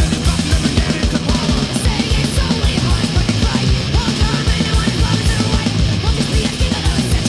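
Recorded punk rock song playing: distorted guitars and bass over a drum kit with a fast, steady kick-drum beat.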